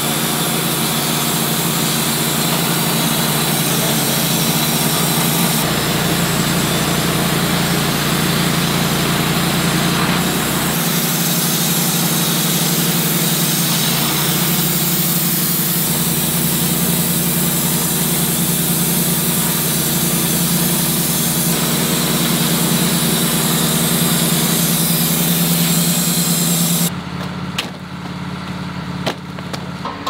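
Wood-Mizer LT15 portable band sawmill running steadily as its blade cuts through a log. Near the end the saw sound drops away, leaving a few sharp knocks.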